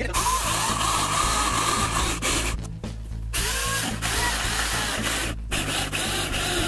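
Chicago Electric 14-inch electric chainsaw, with a 1¾-horsepower motor and an Oregon bar and chain, cutting through a thick log. The cutting noise breaks off briefly a little under three seconds in and again about five and a half seconds in.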